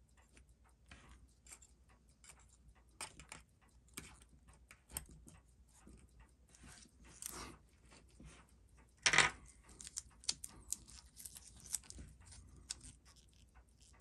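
Small metal watch parts and tools handled on a workbench: irregular light clicks and taps, with one louder clack about nine seconds in.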